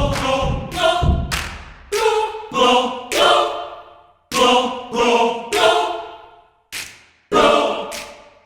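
Music: voices singing a string of short, accented chords together, each starting sharply and dying away, in uneven groups with brief gaps.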